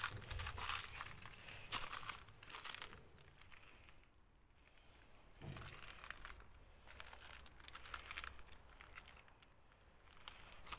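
Faint, irregular footsteps crunching on gravel, pausing briefly about four seconds in.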